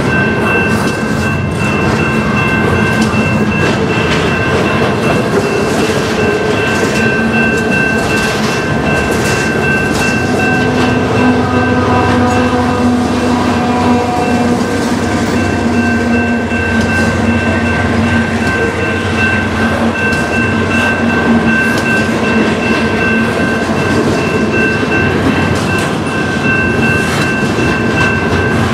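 Double-stack intermodal freight train rolling steadily past, wheels clicking over the rails. Around the middle a mid-train distributed-power diesel locomotive goes by, adding a low engine hum.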